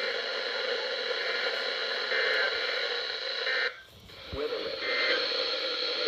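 Weather radio receiver hissing with static, a steady noisy signal with no clear voice. It drops out briefly about four seconds in, then the hiss returns.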